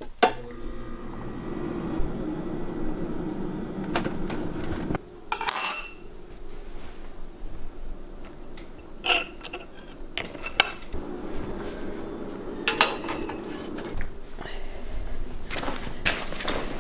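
A metal spoon and a ceramic cereal bowl clinking and clattering several times while breakfast is made, with a brief rattle about five and a half seconds in, over a steady low hum.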